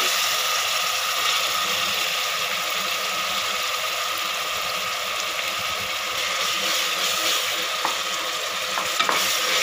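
Chopped vegetables sizzling steadily in hot oil in an aluminium pressure cooker as they are stirred with a wooden spatula, with a few light knocks near the end.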